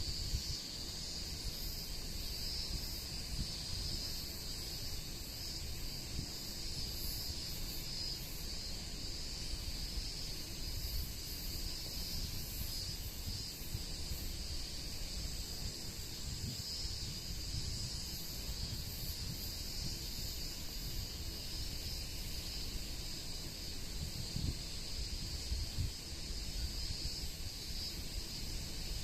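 A steady high-pitched chorus of insects buzzing outdoors, overlaid by wind buffeting the microphone in uneven low gusts.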